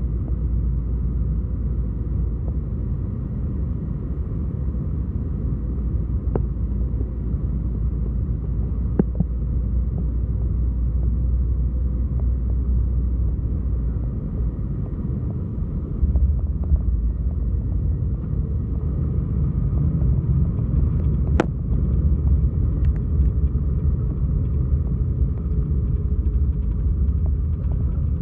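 Airbus A321 cabin noise during landing: a steady rumble of engines and airflow on final approach. About halfway in it steps up to a louder rumble as the jet touches down and rolls out with spoilers up and thrust reversers deployed. There is a single sharp click a little later.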